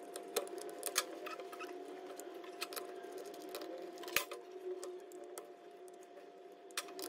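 Scattered light metallic clicks and taps of a saw chain and screwdriver against a chainsaw's guide bar as the chain is fitted, the sharpest about four seconds in, over a steady background hum.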